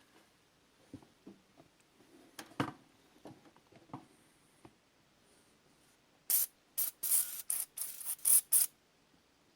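Aerosol can of PB Blaster penetrating oil sprayed in a quick series of about seven short squirts, about six seconds in, to soak the muffler bolts. A few light knocks and clicks of handling come before it.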